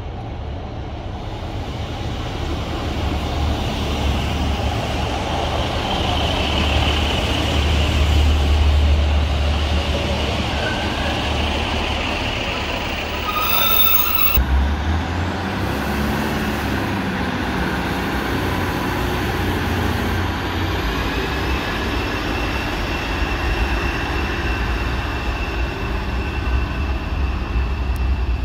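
Northern Class 156 diesel multiple unit running at the station: a heavy low engine and wheel rumble that builds over the first several seconds, with thin high wheel squeals on top. About halfway through the sound changes abruptly after a brief high chatter, then the rumble and squeal carry on.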